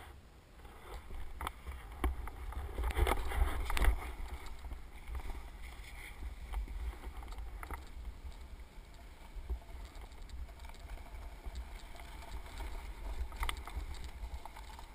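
Hiss and scrape of sliding over firm spring snow, swelling loudest about three to four seconds in, over a steady low rumble of wind on the microphone.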